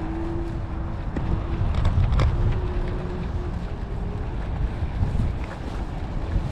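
Wind buffeting the microphone while riding a Lime electric scooter, over the thin whine of its electric motor, which holds a steady pitch, drops out about one and a half seconds in and returns in short stretches. A single sharp knock comes about two seconds in.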